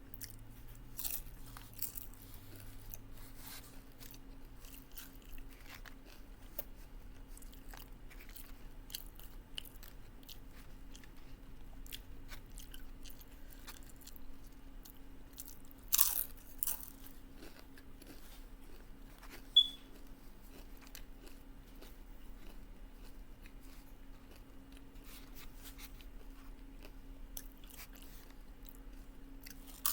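Close-up chewing and crunching of taco salad with tortilla chips, with scattered crisp crunches and a louder crunch about halfway through. One sharp click stands out a few seconds later, over a faint steady hum.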